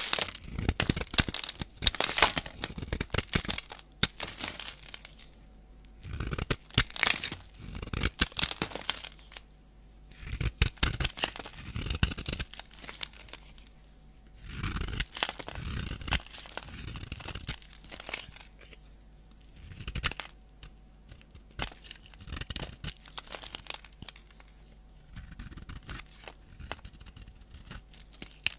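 A bar of soap being scraped with a blade in repeated strokes, making dry, crackly scratching as shavings peel off. The scraping comes in runs of one to three seconds, with short pauses between them.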